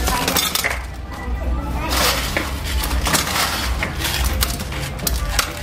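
Crushed ice crunching and rattling as it is packed by hand into a plastic cup from an ice bin, in a run of short irregular clicks.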